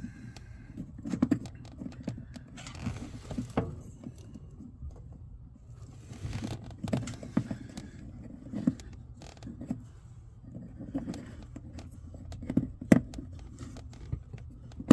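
Scattered light clicks, knocks and short scrapes of small parts and a hand tool being handled during a car-speaker install, over a low steady hum.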